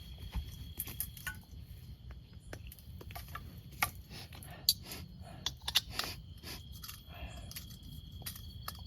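A run of sharp clicks and clinks, like small metal gear being handled, over the steady chirring of crickets.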